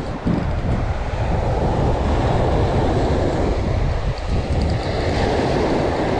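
Ocean surf breaking and washing up a sand and pebble beach, with wind buffeting the microphone in a steady rumble.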